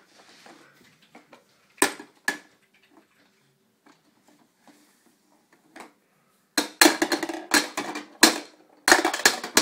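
Toddler's toy hammer knocking on a pounding toy: two single knocks about two seconds in, then a fast run of clattering blows near the end.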